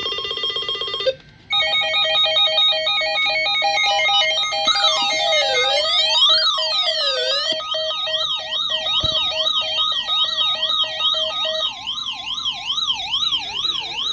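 Electronic alert alarms from weather alert radios sounding for a newly issued severe thunderstorm warning. A steady tone cuts off about a second in and gives way to rapid pulsing beeps. About five seconds in a slow rising-and-falling siren joins them and turns into a fast warbling wail; near the end a steady tone holds beneath the siren.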